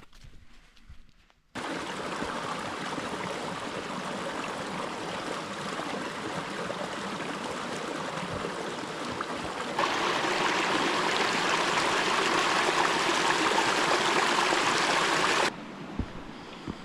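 Running water of a stream: a steady rushing that starts suddenly, gets louder about ten seconds in, and cuts off suddenly near the end.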